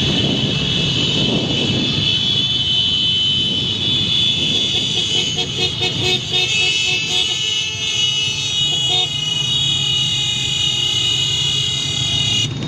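Motorcycles riding together with horns sounding: a steady high-pitched horn tone throughout, and a run of short repeated honks in the middle, over engine rumble and wind.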